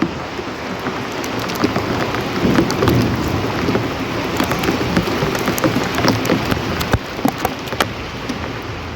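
Steady rain falling, with many sharp individual drops pattering onto a hard surface close by. A low rumble swells briefly about two to three seconds in.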